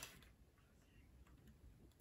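Near silence with a few faint, short clicks; the loudest is right at the start.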